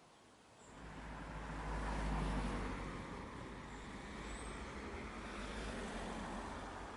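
A road vehicle going by: a steady rushing noise with a low rumble that swells over the first two seconds, holds, and drops away at the end. Faint bird chirps come through above it.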